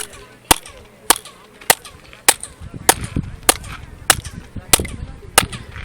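Steady handclaps, about ten, one roughly every 0.6 s, each followed by a brief chirp-like echo off the stepped stairway of the Kukulcán pyramid: the echo famed as the call of the quetzal.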